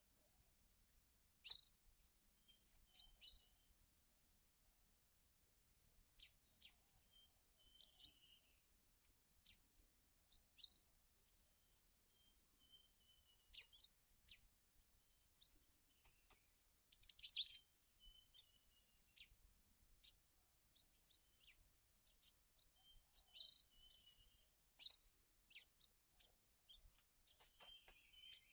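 Cinereous tits (gelatik batu) calling: many short, high chirps and sharp notes, with thin high whistles between them. A louder flurry of chirps comes about 17 seconds in.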